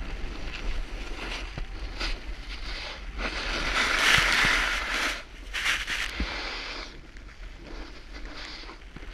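Snowboard sliding and carving through powder snow, a rushing hiss that swells loudest about four seconds in as the board throws up spray, with a second short surge soon after. Wind rumbles on the microphone underneath.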